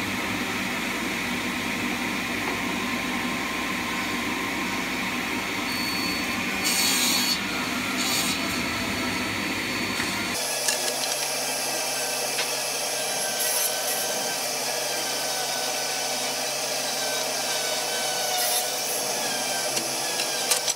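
A sliding-table saw running steadily and crosscutting hardwood strips into short blocks. Several brief louder passes come through as the blade goes through the wood.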